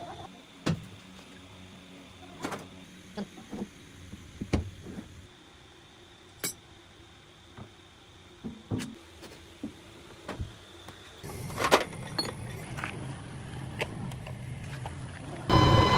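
Scattered knocks and clicks of parts being handled in a workshop, louder and busier after about eleven seconds. Near the end, a loud, steady machine sound with a humming tone starts abruptly.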